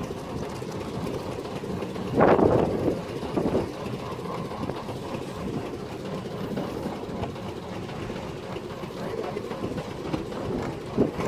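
Steady wind rumbling on the microphone out on open water, with a short louder burst about two seconds in.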